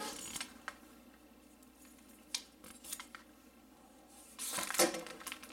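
Machete blade slicing through paracord: a few faint clicks and taps of handling, then a louder cut lasting about half a second near the end.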